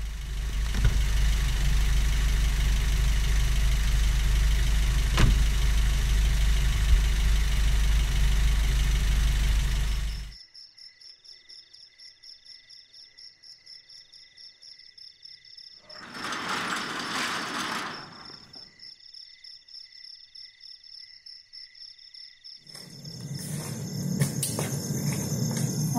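Car engine idling, heard from inside the cabin as a steady low rumble. About ten seconds in it cuts off abruptly to quiet night air with insects trilling in steady pulses. A short swell of noise comes in the middle, and a louder low sound builds near the end.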